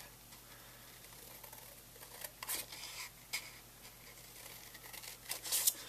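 Scissors cutting through a book page: a few short, quiet snips, spread out, with several close together near the end.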